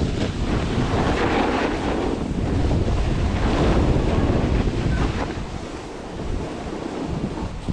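Wind buffeting the camera microphone: a loud rushing noise, heaviest in the low end, that eases briefly about six seconds in.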